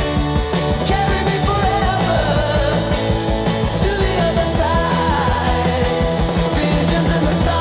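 Psychedelic rock song in late-1960s style: a full band with a steady drum beat, bass, and a lead melody line that slides up and down in pitch.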